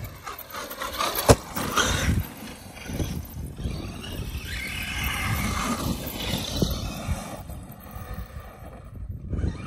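Traxxas Maxx electric RC monster truck driving over dry grass and leaves: the motor whines and the tyres swish as it speeds up and slows, with one sharp knock about a second in.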